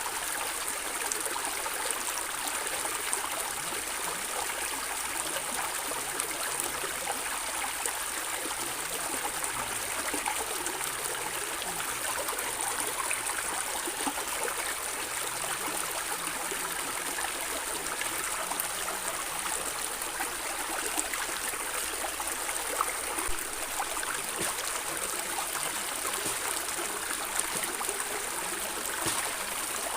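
Stream of water flowing and gurgling steadily, with many small splashes.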